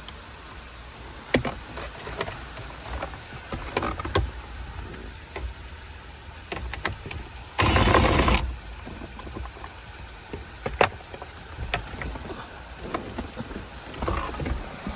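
Scattered light clicks and knocks from a socket extension and bolts being handled. A little over halfway through, a cordless gun runs in one burst of about a second with a high whine, loosening a center console bolt.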